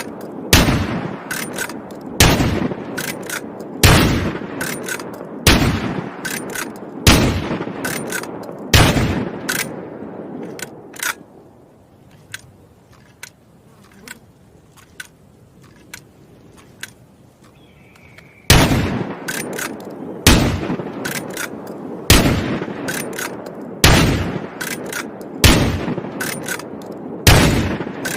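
Winchester Model 1887 lever-action shotgun firing: six loud shots about a second and a half apart, each followed by a quick metallic clack of the lever being worked. After a lull of several seconds with only a few faint clicks, six more shots follow at the same pace.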